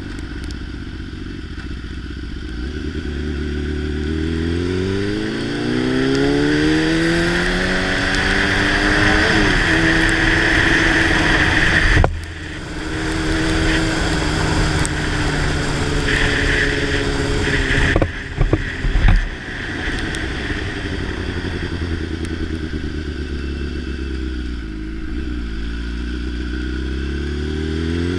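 Motorcycle engine running under way, its pitch climbing as it accelerates, dropping off abruptly about twelve seconds in, then easing down and picking up again near the end, with a steady rushing noise over it. A few sharp knocks come about eighteen to nineteen seconds in.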